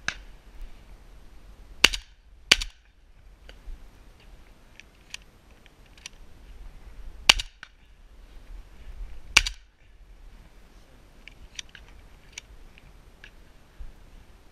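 Shotgun shots: one right at the start, a quick pair about two seconds in, then single shots about seven and nine seconds in. Fainter, sharp cracks come in between and after.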